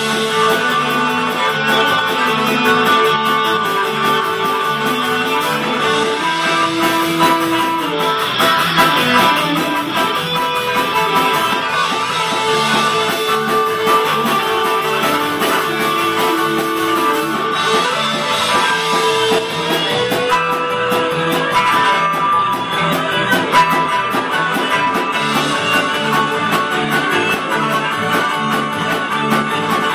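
Live rock band playing loudly without vocals: a fiddle carries a sliding melody over electric guitars, bass guitar and drums.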